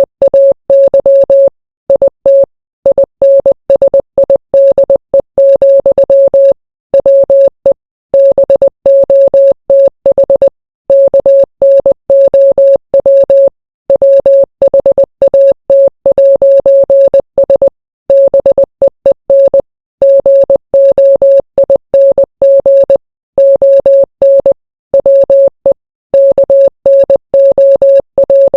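Morse code: a beeping tone at one steady pitch, keyed rapidly on and off in short and long elements (dots and dashes), with short pauses between letters and words.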